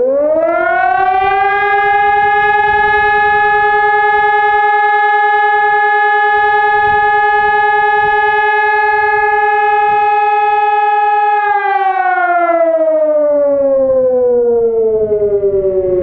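New Hörmann rooftop siren sounding a test alarm. Its tone winds up within about a second, holds one steady pitch for about eleven seconds, then slides steadily down. The held tone lasts about twelve seconds, the length of one blast of the German fire-brigade alarm signal.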